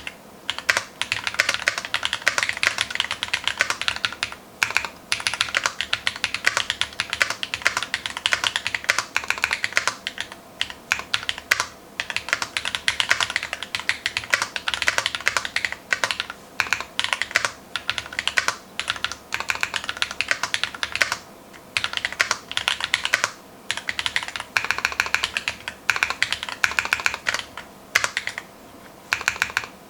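Fast typing on a KBD TFV2 custom mechanical keyboard with lubed Glorious Holy Panda tactile switches and a foam-filled case: a continuous clatter of keystrokes with a few short pauses.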